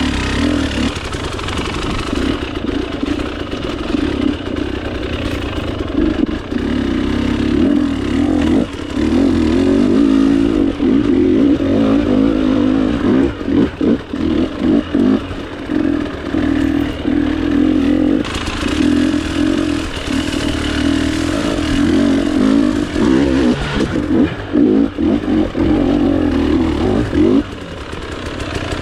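Two-stroke dirt bike engine running on a trail ride. Its note holds steady, breaks into quick on-off throttle blips in the middle, then drops off near the end.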